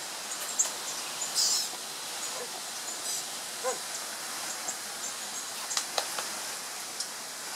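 Small birds chirping in a flowering tree: quick, high chips scattered throughout, with a louder buzzy call about a second and a half in, over a steady background hiss.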